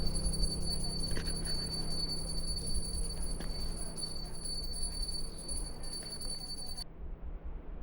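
Background music with jingling bells, slowly getting quieter. A steady high whine runs with it and cuts off suddenly about seven seconds in.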